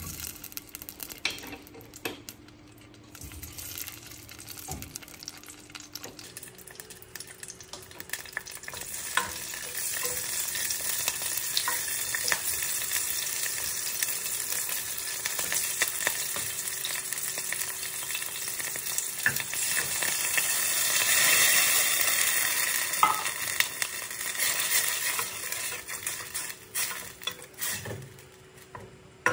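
Food sizzling in a hot pan while being stirred, with short clicks and scrapes of a utensil against the pan. The sizzle builds from about six seconds in and is loudest a little past the middle.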